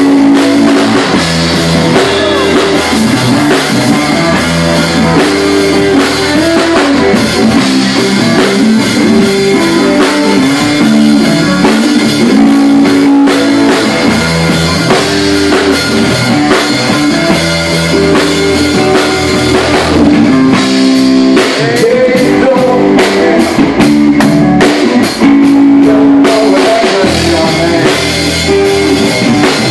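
Live rock band playing: electric guitars over a drum kit. In the last third the drums strike evenly, about three hits a second, for several seconds.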